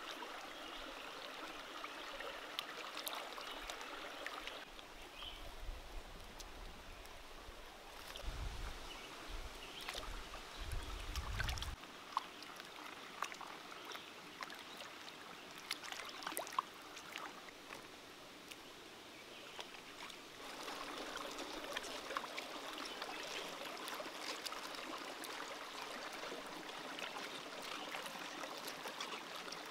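Shallow stream running over rocks, with splashing as hands wash red chilies and spring onions in the current, and scattered small clicks and knocks. The water noise grows louder about twenty seconds in.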